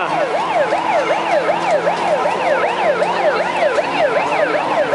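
Fireboat siren in fast yelp mode, its pitch sweeping rapidly up and down about four times a second, over a steady low hum.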